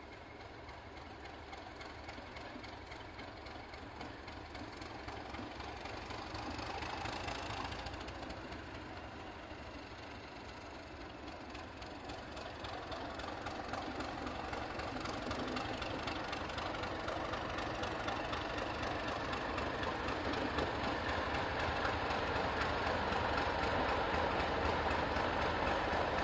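Class 31 diesel locomotive running slowly into a station with its train, the engine and running gear growing steadily louder as it approaches and draws alongside.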